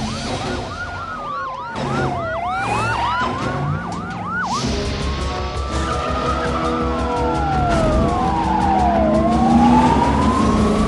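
Police car sirens in a chase: a fast yelp, about three sweeps a second, for the first four and a half seconds, then switching to slow rising and falling wails, with a second siren's wail overlapping near the end. Car engine and road noise run underneath.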